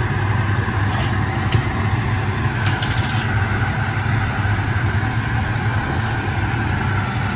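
A kitchen appliance running with a steady low hum, with a few light clicks and taps over it.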